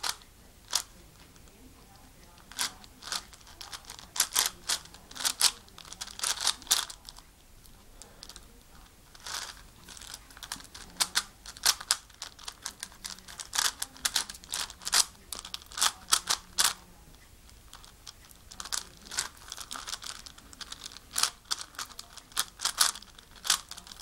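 A 5x5x5 Rubik's cube being turned by hand: the plastic layers click and clack sharply in quick runs of several turns, with short pauses between.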